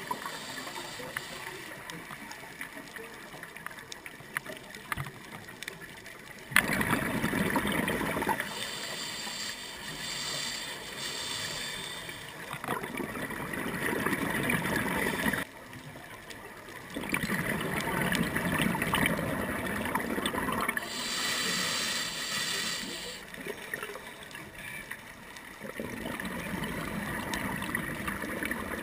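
Underwater noise with recurring bursts of bubbling from a scuba diver's exhaled breath venting through the regulator, each lasting a few seconds, between stretches of quieter water hiss.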